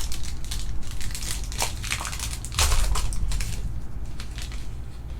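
Foil trading-card pack wrapper crinkling and crackling as it is handled and pulled open, in a quick run of short, irregular rustles.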